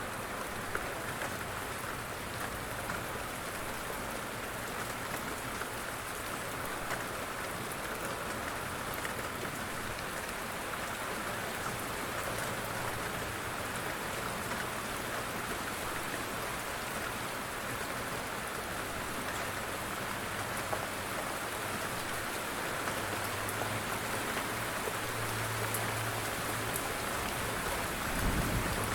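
Steady light rain, an even hiss with scattered ticks of single drops. A low rumble comes in during the last few seconds, swelling near the end.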